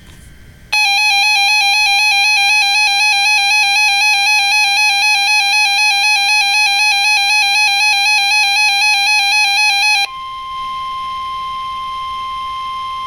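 A weather radio's electronic alert tone warbles rapidly between two close pitches for about nine seconds. It then gives way abruptly to the steady single-pitch 1050 Hz NOAA Weather Radio warning alarm tone, the signal that a warning message is about to be broadcast.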